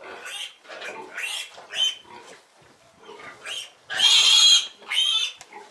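Month-old piglets squealing in a run of short, shrill squeals; the loudest is a longer squeal about four seconds in, followed by one more just after.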